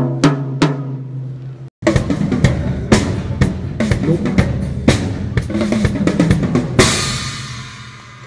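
Three strikes on a tom, each ringing with a low tone, then after a brief break a full drum kit played in a busy groove with kick and snare, ending on a cymbal crash that rings out and fades.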